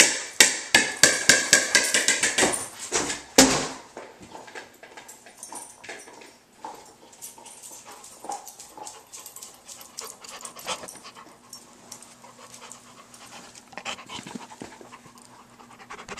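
A rapid, loud clatter of clicks and knocks for the first three and a half seconds, then a dog panting, coming close to the microphone near the end.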